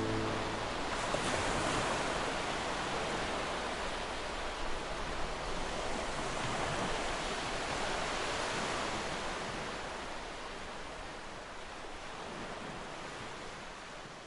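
Sea surf: a steady rush of waves that slowly fades down over the last few seconds.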